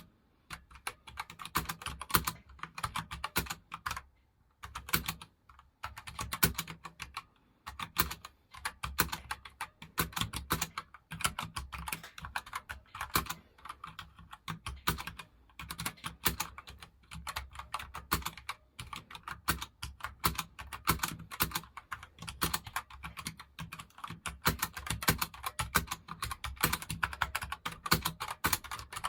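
Typing on a light gaming computer keyboard: rapid, continuous keystroke clicks, with a couple of short pauses early on.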